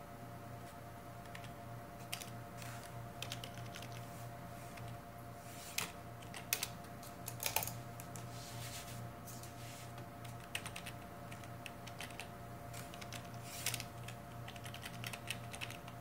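Computer keyboard keys pressed in scattered clicks, a few in quick runs, over a steady low hum.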